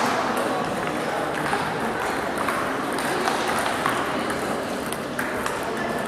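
Table tennis balls clicking off paddles and tables in rallies at several tables at once, irregular sharp ticks with voices in the background.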